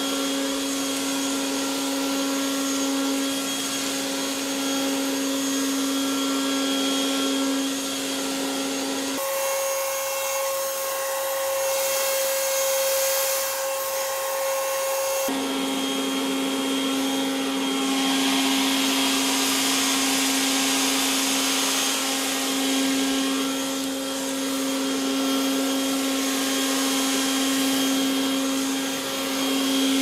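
Cordless battery leaf blower running flat out with a steady whine over a rush of air, blowing a pile of dry leaves. About nine seconds in the whine jumps to a higher pitch for around six seconds, then drops back to the lower pitch.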